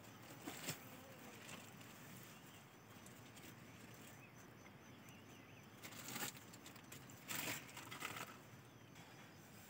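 Quiet outdoor ambience with a few short rustling noises, the loudest around six and seven seconds in.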